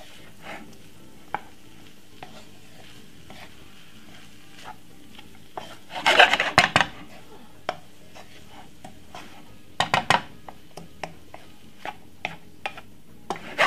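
A spatula stirring and scraping vegetable fried rice around a pan, with a faint steady sizzle underneath. There are bursts of quick scraping strokes about six seconds in and again around ten seconds, between scattered light knocks.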